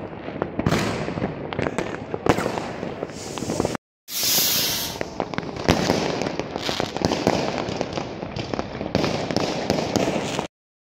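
Many fireworks going off at once: a dense, irregular run of sharp bangs and crackling from rockets and firecrackers. A loud hissing rush follows a brief dropout about four seconds in, and the sound cuts off abruptly near the end.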